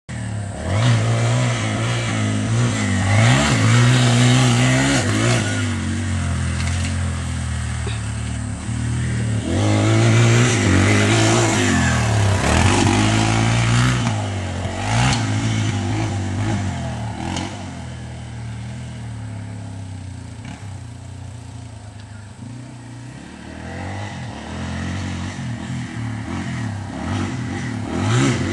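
Dirt bike engine revving up and down as it is ridden, its pitch rising and falling again and again. It grows fainter for a while past the middle and gets louder again near the end.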